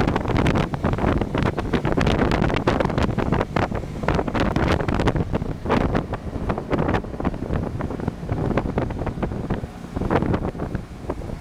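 Wind buffeting the microphone: a constant low rumble broken by rapid, irregular crackles.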